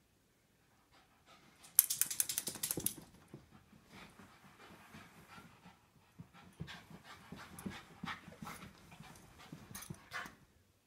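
A dog just out of a bath rubbing himself along a leather couch and the carpet, panting. There is a loud stretch of rapid rubbing about two seconds in, followed by quieter, uneven rubbing.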